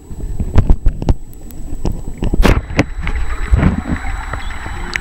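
Underwater sound picked up by a submerged camera: a low rumble of moving water, broken by many sharp, irregular clicks and knocks as swimmers move.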